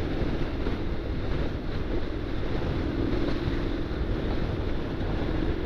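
Wind buffeting the microphone on a moving motorcycle, with the steady drone of the Honda NC750X's parallel-twin engine underneath as it rides at an even pace.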